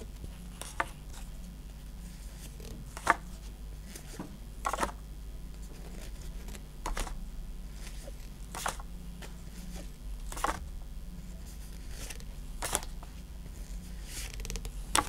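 Pokémon trading cards handled with gloved hands, slid one at a time from the front to the back of a small stack: a short card snap or swish every second or two, over a low steady hum.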